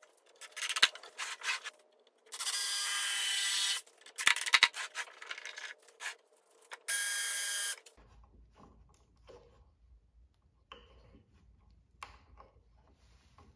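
Cordless DeWalt 20V drill driving screws into plywood in short runs of about a second and a half, three times, with sharp clicks and knocks between the runs. After about eight seconds only faint knocks of plywood parts being handled remain.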